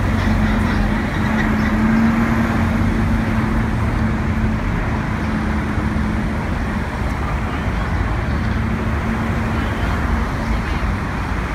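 City street traffic: cars and a taxi passing close by over a steady roar of road noise, with a steady engine hum underneath that fades out near the end.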